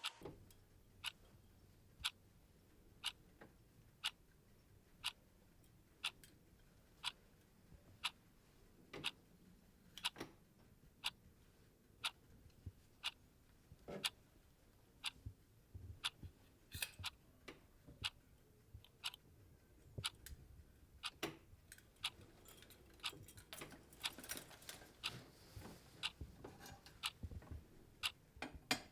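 A clock ticking about once a second, with other small irregular clicks and knocks joining in over the second half.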